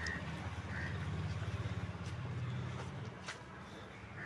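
A calf suckling at a goat's udder, with a few soft sucking clicks over a steady low hum that eases off about three seconds in.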